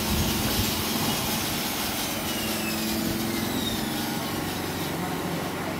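An engine running steadily: a continuous drone with a low hum that holds an even level throughout.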